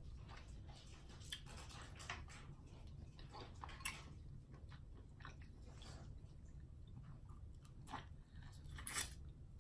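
Faint, close-up sounds of boiled seafood being picked apart by hand and eaten: scattered small clicks and crackles of shells, with a sharper snap about four seconds in and a louder burst of mouth sounds near the end as a piece is bitten and chewed.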